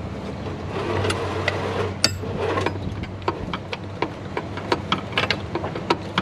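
Hand wrench clicking and clinking against metal while loosening high-pressure oil line fittings on a 7.3 Powerstroke diesel: irregular sharp metallic ticks, with one louder clank about two seconds in, over a low steady hum.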